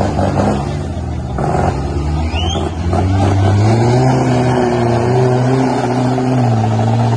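Off-road 4x4's engine revving hard under load in mud, its pitch climbing about three seconds in and holding high.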